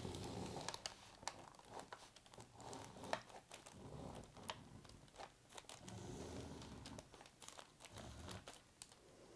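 Faint, irregular scratching and crinkling of paper as a pointed tracing tool is pressed along the lines of a pattern on tracing paper laid over transfer paper, the thin sheets rustling under the hand.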